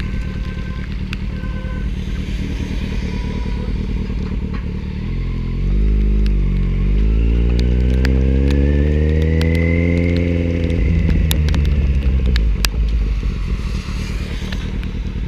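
Motorbike engine running while riding on a wet road, with rushing road and wind noise. The revs climb about five seconds in, hold, then fall away near the end. Scattered sharp clicks sound through it.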